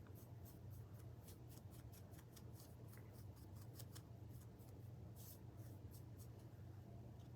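Faint, quick scratchy strokes of a paintbrush dabbing and brushing paint onto a small wooden cutout, several strokes a second, over a low steady hum.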